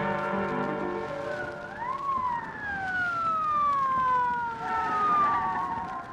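Police-car siren sound effect: a mechanical siren winds up quickly to a peak about two seconds in, then slowly winds down, its pitch falling over the following seconds. A music bridge ends just before the siren rises.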